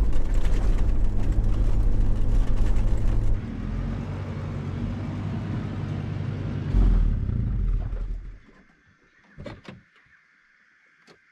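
Toyota 80 Series LandCruiser engine running loudly on the move, dropping to a lower, steadier running sound about three seconds in, with a brief surge near seven seconds. The engine then dies away about eight seconds in, and a couple of faint knocks follow.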